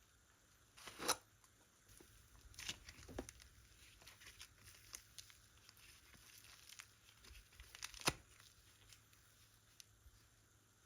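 Slime being handled and stretched: scattered sticky clicks and small crackling pops, with two louder snaps about a second in and near eight seconds.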